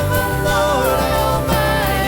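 Live worship band music: a voice singing a gliding melody over a steady bass and a beat about twice a second.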